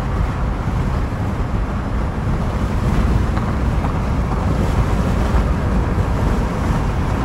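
Wind and road noise of a vehicle driving at highway speed: a steady rushing with a heavy low rumble.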